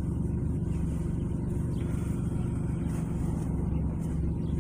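Steady low hum of a car idling, heard from inside the cabin, with uneven low rumbling from gusty wind outside.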